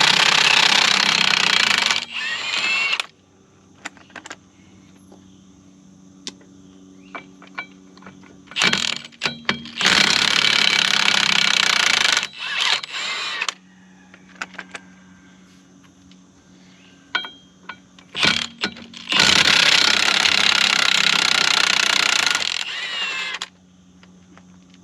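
Impact wrench hammering in three bursts of two to four seconds each, running the sprocket bolts on a skid steer's track drive, with light clicks and knocks between the bursts.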